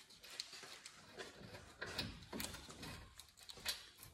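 Ratchet wrench clicking in short irregular runs as the 17 mm brake caliper bracket bolts are backed out.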